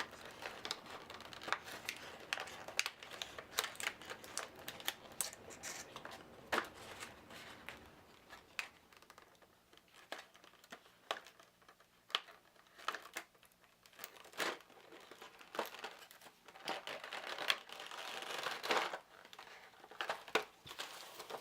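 Plastic packaging crinkling and rustling, with scattered light clicks and taps, as cards and tokens are handled and lifted out of a plastic game tray under its protective cover.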